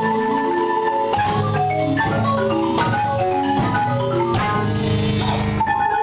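Guatemalan double marimbas, two instruments played by several players together. A held, rolled chord gives way about a second in to a passage of quick separate notes moving up and down. Near the end it returns to sustained rolled chords.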